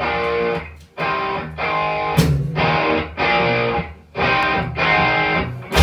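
Distorted electric bass riff in a rock style, played as short held notes broken by brief stops, about seven times in a row.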